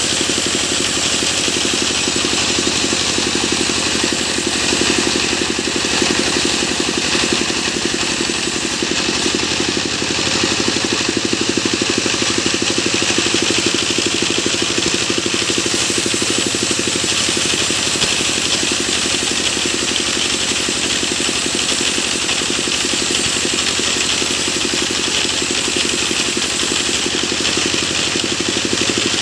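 A sawmill's engine running steadily at an even, loud level, with a fast, even pulse throughout.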